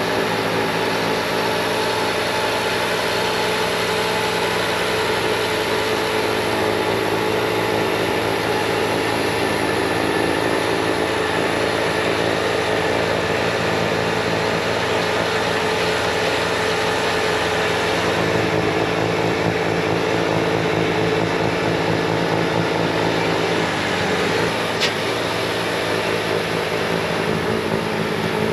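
Bobcat T66 compact track loader's diesel engine running steadily at full throttle, driving its high-flow hydraulic snowblower attachment.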